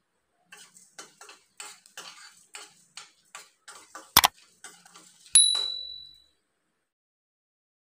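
Steel spoon stirring dry whole spices and dried red chillies around a stainless steel pan as they dry-roast, a steady run of light scrapes and ticks about two a second. About four seconds in there is a sharp click, and a second later a bright ringing ding that fades over most of a second.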